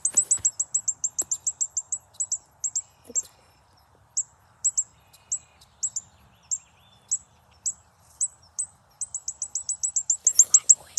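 Recorded red-winged blackbird calls played back loudly: a rapid series of short, high, sharp chirps that slows to single chirps about two a second, then speeds up again near the end.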